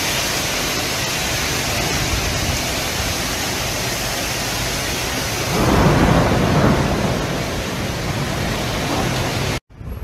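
Heavy storm rain and wind making a steady rush of noise, which swells louder and deeper for a second or two about six seconds in.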